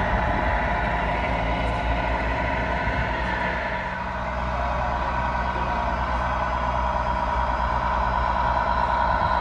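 Radio-controlled model truck running, giving a steady truck-engine drone with a low rumble under it.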